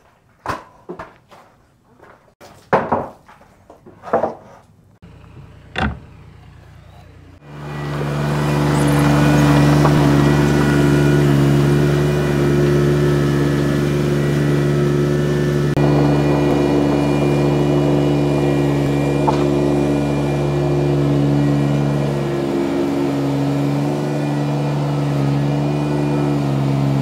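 Several sharp knocks, then about seven seconds in a vehicle engine comes in and runs steadily at an even speed, with a brief dip in pitch a few seconds before the end.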